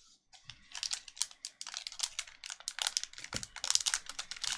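Red foil trading-card pack crinkling as it is torn open by hand, a dense run of sharp crackles starting about half a second in.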